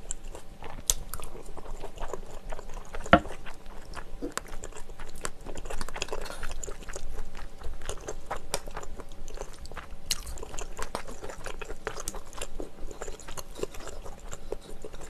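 Close-miked chewing of seafood rosé pasta made with Chinese glass noodles and dumpling pops, with many small wet mouth clicks and a sharper click about three seconds in.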